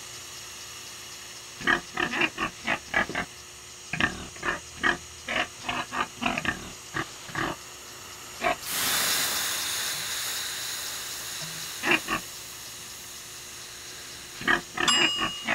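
A pig grunting in quick runs of short grunts. About halfway through, a loud hiss of steam starts suddenly as water is ladled onto hot sauna stones, then fades away over several seconds.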